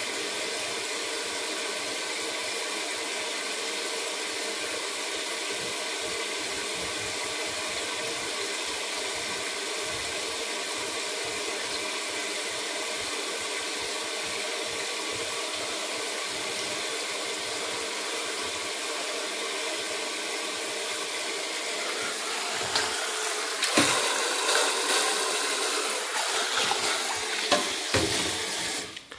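Steady rushing, hissing water noise. About three-quarters of the way through it turns louder and uneven, with splashing and a few knocks as a hand works in the water around the copper coil.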